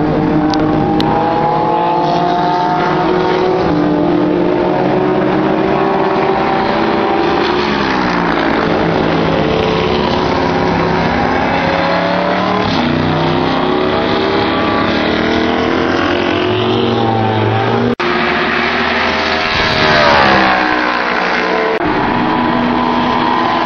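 GT race car engines at full throttle, their pitch climbing between gear changes and sweeping down as cars pass close by, one after another. The loudest pass comes near the end, with a sharp drop in pitch.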